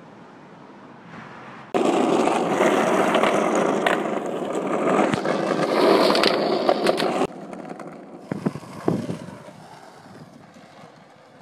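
Skateboard wheels rolling loudly over asphalt with a few sharp clacks. The rolling starts abruptly about two seconds in and cuts off about five seconds later. A quieter stretch with a couple of knocks follows.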